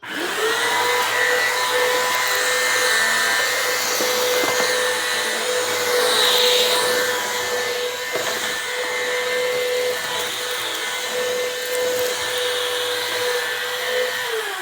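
Bissell CleanView vacuum cleaner switched on, its motor spinning up in about half a second to a steady high whine with a rushing of air. Near the end it is switched off and the whine starts to fall in pitch as the motor winds down.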